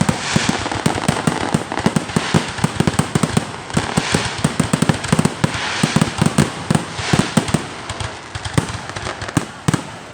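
Fireworks going off: rapid, dense volleys of pops and crackling bangs, in clusters that ease off near the end.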